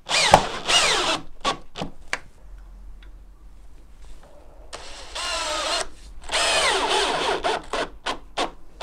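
DeWalt cordless drill-driver driving pan head screws through plastic feet into a timber joist, in three short runs with the motor's pitch rising and falling, and sharp clicks of handling between runs.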